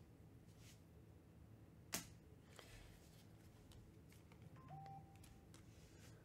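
Near silence with faint handling of a stack of trading cards, and one sharp click about two seconds in.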